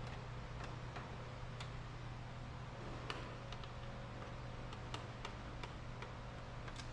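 Irregular light clicks of hand tools and small parts as a screw is worked loose inside a car door, over a steady low hum.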